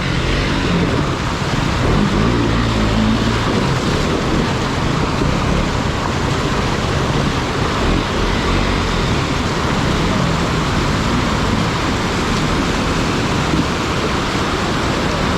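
Steady rush of a flood-swollen mountain stream, with a motorcycle engine running under it and revving up a couple of times as a bike is taken across the water.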